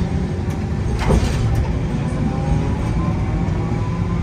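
A Nagasaki Electric Tramway streetcar running on its rails: a steady low rumble from the wheels and running gear, with a single clack about a second in. A faint whine rising slowly in pitch comes in during the second half.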